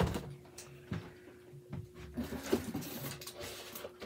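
Cardboard toy boxes and plastic packing being handled and set down: a few sharp knocks and a stretch of rustling.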